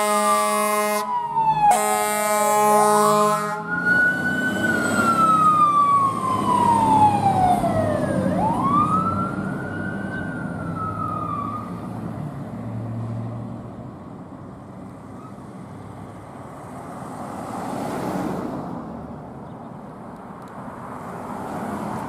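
Fire engine (2003 Pierce Arrow XT) sounding two long air-horn blasts over its running diesel, then its siren wails once, sweeping down and back up. After that the truck fades away into quieter street traffic.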